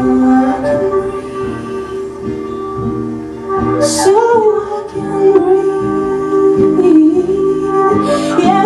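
Acoustic rock band playing live: long held notes that bend slightly in pitch, over a steady lower accompaniment, with singing.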